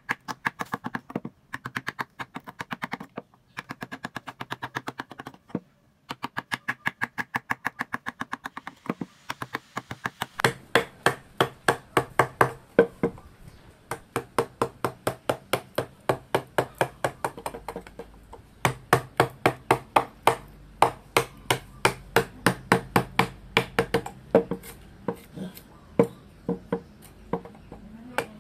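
A wooden mallet strikes a carving chisel, driving it into the wood in a steady run of knocks. For the first nine seconds the taps are quick and light, about six a second. From about ten seconds in the blows are heavier and slower, about three a second, with short pauses.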